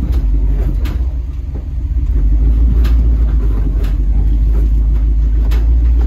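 CUCV rock crawler's engine running under load as the truck climbs a rock ledge; the low rumble dips slightly, then grows louder about two seconds in and holds. A few sharp knocks sound over it.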